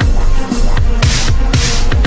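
Electronic dance music with a heavy beat: deep kick drums about twice a second and hissy snare hits, in a dubstep style.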